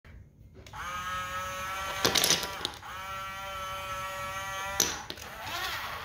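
Small electric motor of a toy RC dump truck's tipping bed whining with a steady high tone, in two runs, as the bed tips and then lowers. Between the runs, about two seconds in, wooden toy blocks clatter as they slide out of the bed, and a knock comes near the end as the bed settles down.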